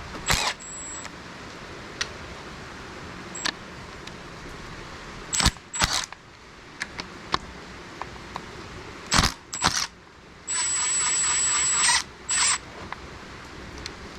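Hand tools working the 13 mm alternator mounting bolts on a BMW N54 engine: scattered metallic clicks and knocks. About ten seconds in comes a steady burst of fast ratcheting with a thin high whine, lasting about a second and a half, followed by a shorter one.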